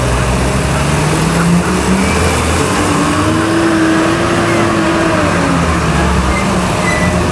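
A motor vehicle driving, with steady engine and road noise. The engine note rises slowly and then eases off again around the middle.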